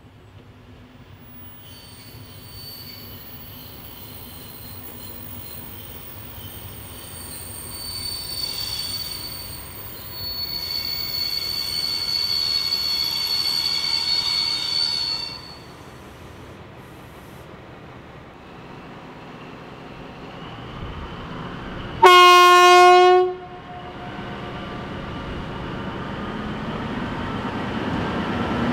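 DR class 112 diesel locomotive approaching with a passenger train. A high, steady metallic squeal from the train grows louder and stops about halfway through. About 22 seconds in the locomotive gives one loud horn blast of just over a second, and the engine and train noise then grow steadily louder as it draws close.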